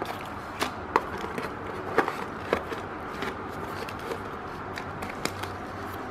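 Unboxing handling: items lifted out of a cardboard box and set down on a table, with scattered light knocks and taps and some rustling of packaging.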